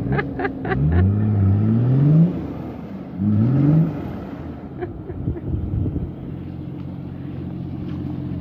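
Off-road 4x4's engine revving hard twice, its pitch rising each time, then running steadily. A few quick knocks come right at the start.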